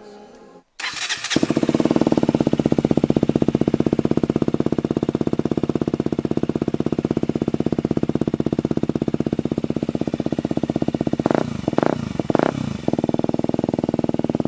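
KTM Duke 125's single-cylinder four-stroke engine, fitted with a Radical Racing full exhaust system, starting about a second in and then idling with an even, rapid beat. Three quick throttle blips come near the end before it settles back to idle.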